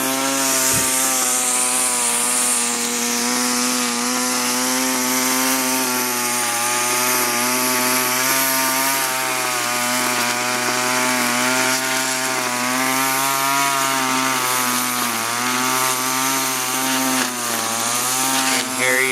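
Gas string trimmer's small two-stroke engine running at full throttle while cutting weeds. Its throttle trigger has been bypassed so it runs wide open all the time. The pitch holds steady, wavering slightly.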